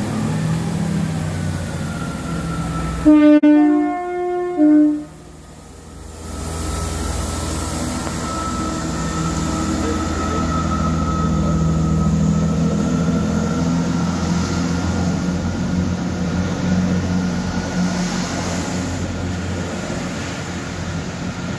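Chiltern Railways Class 165 diesel multiple unit sounding its two-tone horn about three seconds in, low-high-low, the loudest thing heard. Its underfloor diesel engines then run with a steady drone as the train moves off and passes close by.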